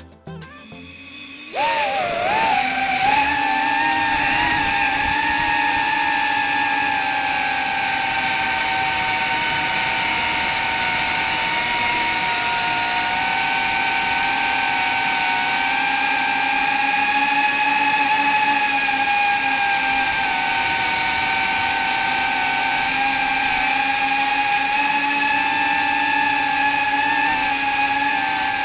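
Brushless motors and propellers of a small FPV cinewhoop drone in flight, a steady high whine starting about a second and a half in, its pitch wavering slightly with the throttle.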